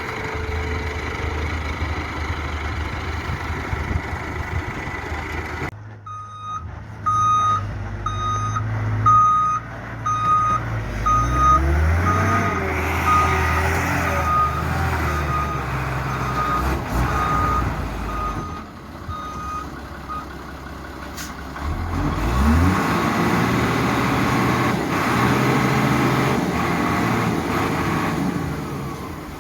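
Backhoe's diesel engine running and revving under load, rising and falling in pitch. From about six seconds in until about twenty seconds, a reversing alarm beeps at one steady pitch, roughly once every three-quarters of a second.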